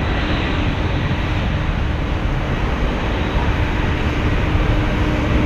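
Boeing 767-300ER airliner taxiing on idling jet engines: a steady rumble and hiss with a faint steady hum.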